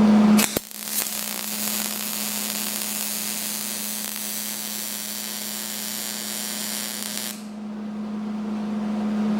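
Aluminum MIG weld with a Hobart Spoolrunner 100 spool gun: the arc strikes with a sharp crack about half a second in, then hisses steadily for about seven seconds and cuts off suddenly. The weld is running a little too hot. A steady machine hum sits under it.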